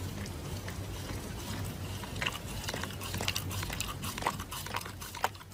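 A Shiba Inu biting and chewing a paper face sheet mask: a run of sharp mouth clicks and smacks from about two seconds in, over a steady low hum.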